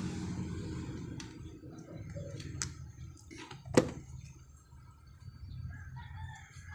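Sharp metallic clicks as a welding ground clamp is handled, the loudest a single snap just under four seconds in. Passing traffic noise fades out in the first second or so.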